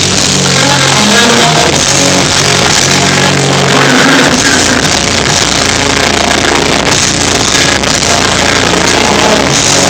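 Live melodic hardcore band playing loud and distorted, heavy guitars and drums over held bass notes, recorded with overloaded, muffled sound.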